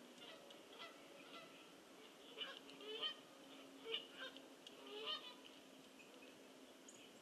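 Faint geese honking: a run of short honks between about two and five seconds in.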